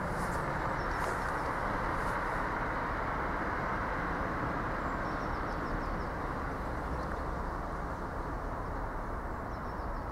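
Steady rumble of a train running through the station, easing off slightly near the end, with a few faint bird chirps over it.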